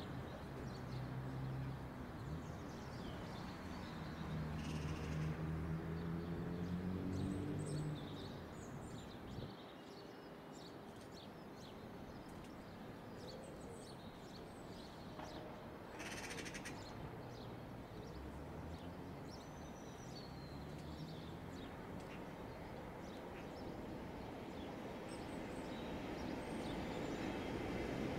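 Birds chirping over faint outdoor noise while a Class 47 diesel locomotive running light approaches, its engine growing louder over the last few seconds. A low pitched drone sounds for the first eight seconds, and there is a brief hiss about sixteen seconds in.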